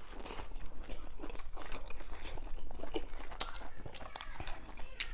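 A person chewing and biting food close to the microphone, most likely a chive-and-egg steamed bun, with irregular wet mouth clicks and smacks.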